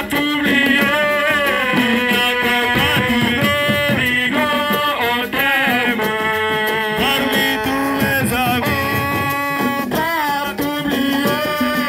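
Music with a melodic voice singing in long, gliding phrases over drums.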